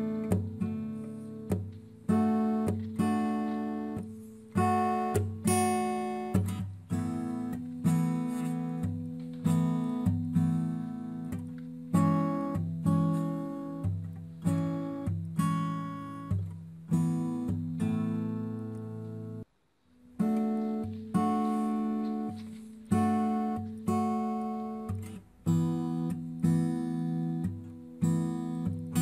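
Background acoustic guitar music: picked chords and notes, each sounding sharply and fading, about one a second, with a brief break about two-thirds of the way through.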